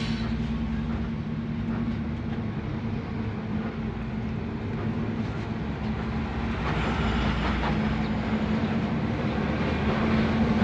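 Intercity bus driving on the road, heard from inside the cabin: a steady engine drone with road and rattle noise.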